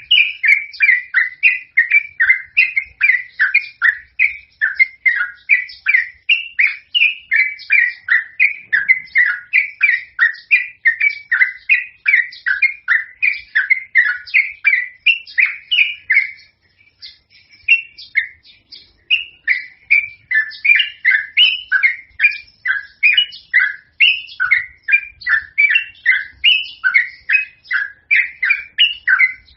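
Yellow-vented bulbul singing vigorously: a long, unbroken run of quick, bubbly notes, several a second, with a short pause a little past the middle before the song resumes.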